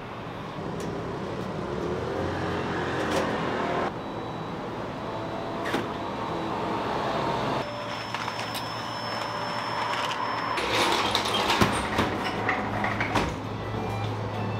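Bakery workroom noise: a steady low machine hum with scattered knocks and clatter. The background changes abruptly three times, and a thin high tone sounds through the middle stretch.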